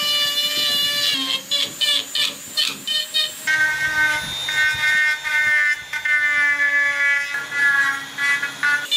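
Cordless rotary carving tool running at high speed as its burr grinds into wood. The whine shifts pitch in steps as the load changes, and it pulses rapidly for a couple of seconds about a second in.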